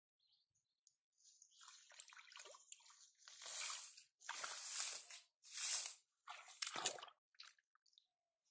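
Hands groping through mud and shallow water while hunting catfish by hand. There are irregular bursts of wet noise, starting about a second in and loudest in the middle.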